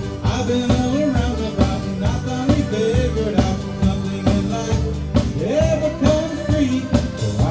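Country-rock band music: a drum kit keeps a steady beat under guitars and bass, with a melody line over the top.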